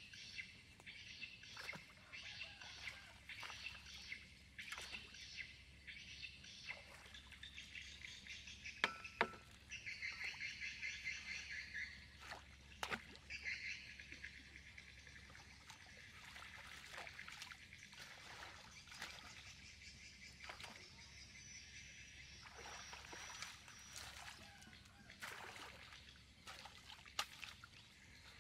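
Birds and insects chirping: a rapid, pulsing chatter that is loudest about ten seconds in. A few sharp knocks are scattered through it, more of them near the end.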